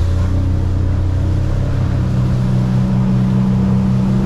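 Boat's outboard motor running under throttle at speed: a steady low drone whose note steps higher about a second and a half in, over the rush of the wake.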